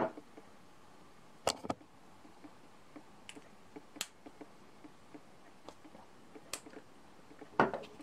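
Sharp clicks of Victorinox Swiss Army knife blades and tools snapping shut and open on their springs: a quick pair about a second and a half in, then single clicks spread through the rest, with faint handling ticks between.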